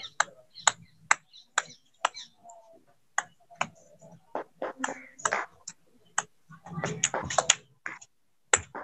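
Table tennis ball bouncing on a bat in a ball-control drill: a run of sharp, uneven clicks, two or three a second.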